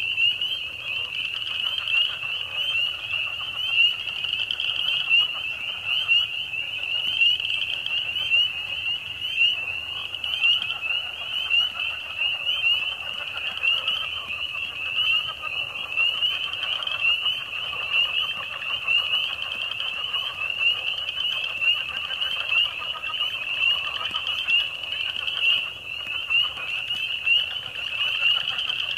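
A dense spring chorus of frogs calling without a break: a steady wall of high-pitched calls, with a fainter, lower layer of calls beneath.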